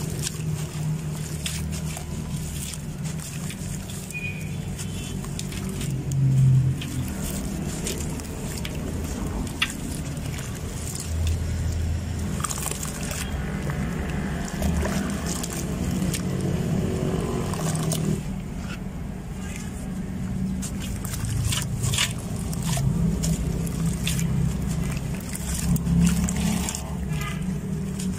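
Hands crumbling dry, porous sand-cement lumps into a metal basin of water and swishing through the cement slurry. There are gritty crunches, splashes and sloshing over a steady low rumble.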